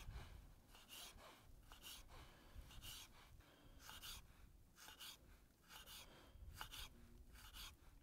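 Knife slicing orange peel into thin strips on a wooden cutting board, soft cuts at about one a second.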